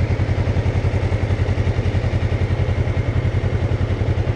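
Motorcycle engine idling with a steady, even pulse of about ten beats a second.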